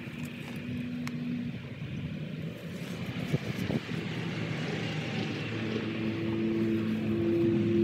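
Low engine drone over a steady rumble, growing louder over the last few seconds.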